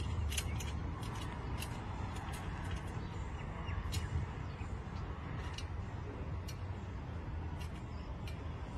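Scattered light metallic clicks and taps as the steel telescopic blade-support arms of a band saw blade sharpener are handled and slid, over a steady low rumble.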